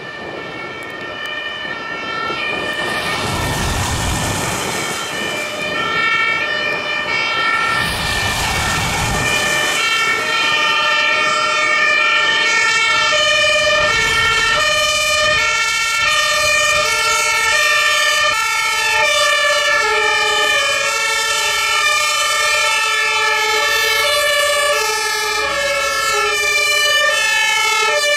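Several fire engines' two-tone sirens (German Martinshorn) sounding together, out of step with one another, as a convoy drives past, growing louder over the first few seconds. Twice, a few seconds in and at about eight seconds, a vehicle passes close with a rush of tyres on the wet road.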